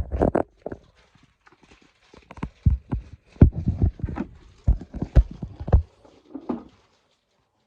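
Irregular hollow plastic knocks and clicks from a Henry vacuum cleaner's body and clips being handled, a quick cluster at the start and a busy run of knocks in the middle.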